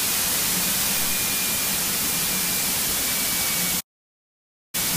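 Steady rushing hiss of a single-engine light plane's cockpit noise (engine, propeller and airflow) during the landing roll, with a faint steady high tone over it. The sound cuts out to total silence for about a second near the end, then returns.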